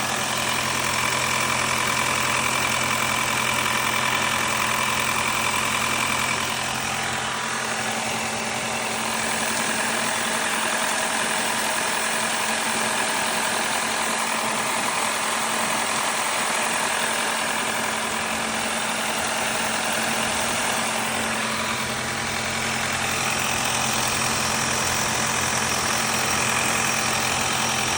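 Audi EA888 four-cylinder turbo petrol engine, code DKNA, idling steadily with the strange noise that its owner is asking about. Its deepest hum drops away about seven seconds in.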